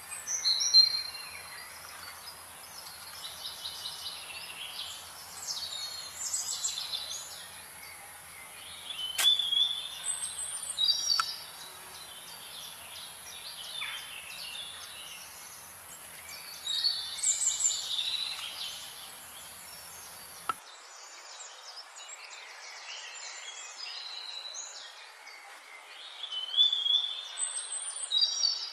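Wild birds singing and chirping in short bursts every few seconds over a steady background hiss. There is a sharp click near the middle. About two-thirds in, the low hum and high hiss of the background cut off abruptly.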